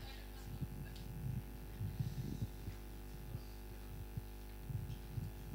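Steady low electrical mains hum, with a few soft low thumps and bumps scattered through it.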